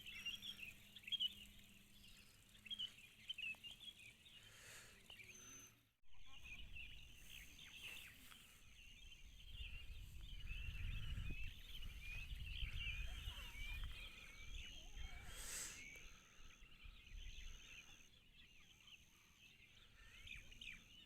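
Faint dense chorus of chirping animal calls. After a brief dropout about six seconds in, a short high tone repeats about once a second, and a low rumble rises in the middle and fades.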